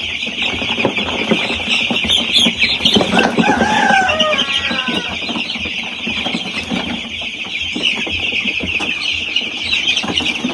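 Many week-old chicks peeping continuously, a dense high-pitched chorus. About three seconds in, a few louder falling calls stand out above it.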